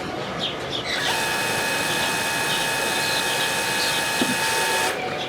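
Welder turned down to its lowest setting, running as it passes current through steel knife blades in a salt-water bath to etch a patina: a steady high whine over a hiss, starting about a second in and cutting off suddenly near the end.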